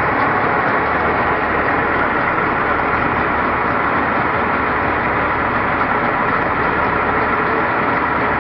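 Steady motor-vehicle engine noise, unbroken and even, with faint voices behind it.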